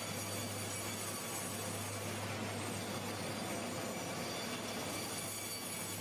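Sawmill machinery running: a steady mechanical din from the band-saw headrig and log carriage, with a low hum underneath.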